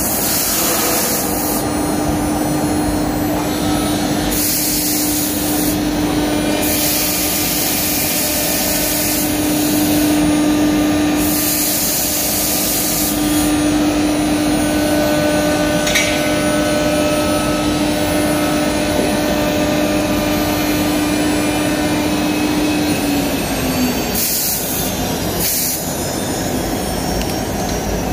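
The 9 kW air-cooled HQD ATC spindle of a CNC router runs with a steady whine as the cutter mills grooves in MDF. The hiss of cutting comes and goes in stretches over a constant machine drone. The whine dips and fades out a little past the middle of the last third.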